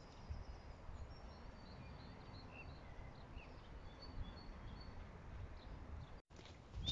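Quiet garden ambience: a few faint, scattered songbird chirps over a low, steady rumble, with a brief total drop-out near the end.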